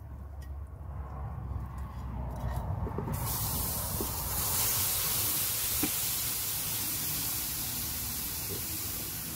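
Stew in a cast iron Dutch oven hissing and sizzling on a wood-burning stove. The hiss sets in suddenly about three seconds in, after a few light clinks of the lid, and then slowly eases off.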